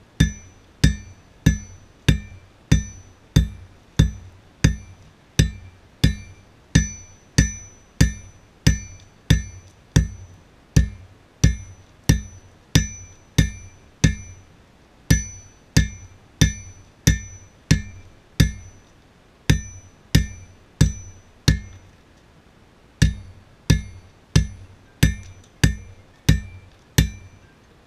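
Hand hammer striking hot steel on an anvil in steady forging blows, about one and a half per second, the anvil ringing after each strike. The blows stop briefly a little over two-thirds of the way through, then resume.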